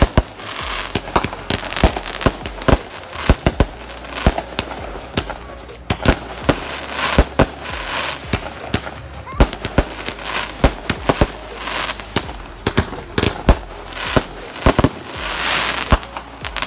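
Aerial fireworks going off in quick, irregular succession: a string of sharp bangs, sometimes several a second, with spells of dense crackling in the middle and near the end.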